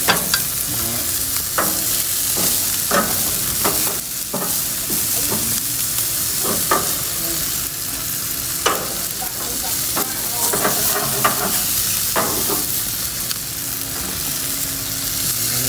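Beef steaks and sausages sizzling steadily on a hot barbecue grill, fat spitting over the flames, with the sharp clicks and scrapes of metal tongs on the grate as the cooked steaks are lifted off.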